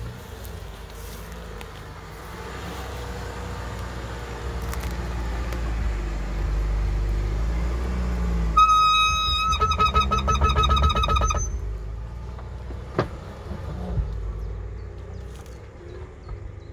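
New Land Rover Defender 110 driving through deep mud, its engine and tyres giving a deep rumble that builds over the first half. Just past the middle, a loud, high pitched pulsing tone cuts in for about three seconds. Two sharp knocks come near the end.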